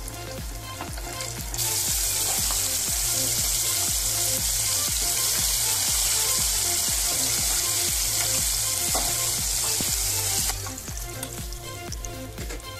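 Masala-coated chicken wings deep-frying in hot oil: a loud, even sizzle that starts about two seconds in and cuts off suddenly near the end. Background music with a steady beat plays throughout.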